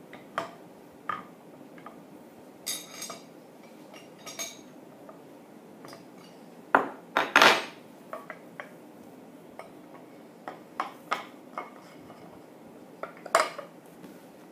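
Scattered metallic clinks, knocks and short scrapes of tools on a ball valve's metal body as it is worked loose and unscrewed. The loudest clanks come about seven seconds in and again near the end.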